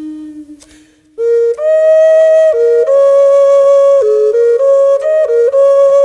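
Background music: a solo flute melody. A held low note fades out, and after a brief pause a louder phrase of stepping notes begins about a second in.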